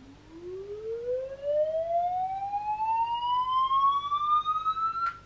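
A siren-like tone played back from a phone, gliding steadily up in pitch from low to high over about five seconds, rising fastest at first, then cutting off sharply near the end.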